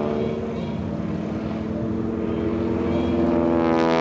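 North American SNJ-5 Texan's nine-cylinder Pratt & Whitney R-1340 Wasp radial engine and propeller running in flight during aerobatics. The sound grows louder over the last second.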